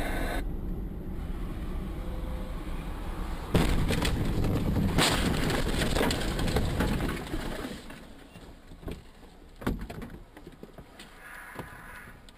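Dashcam audio of a car accident on an icy road: steady road noise, then a sudden loud impact about three and a half seconds in, followed by a few seconds of loud crashing noise that dies away, with a couple of separate knocks later.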